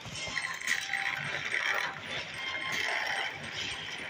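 Battery-powered Thomas & Friends toy trains running on plastic track: a steady whirring gear drive with ratchety clicking.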